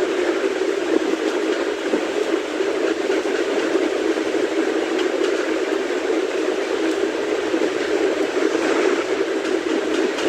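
A steady mechanical whirring noise with no breaks or changes.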